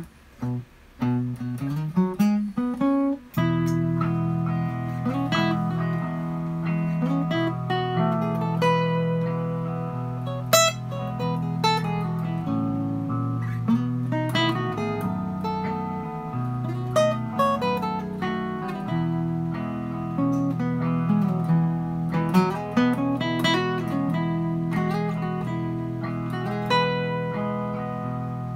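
Acoustic guitar played solo: a short run of single notes climbing in pitch, then from about three seconds in a lead line of single notes over ringing bass notes and chords.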